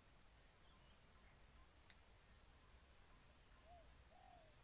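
Faint, steady, high-pitched insect trill, with a few faint short chirps near the end.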